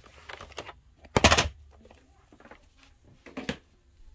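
A plastic VHS tape case being handled: a few short clacks and knocks, the loudest about a second in and another about three and a half seconds in.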